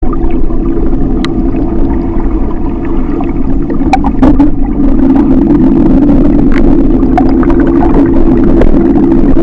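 Motorboat engine running at a steady, even pitch, with scattered sharp knocks and clicks over it.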